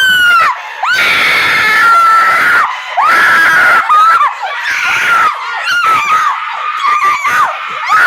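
Several people screaming, long high-pitched screams one after another, breaking into shorter yelps in the second half.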